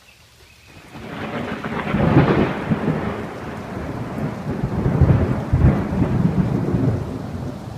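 Thunderstorm: a long roll of thunder that builds about a second in, swells twice and eases near the end, over rain and strong wind.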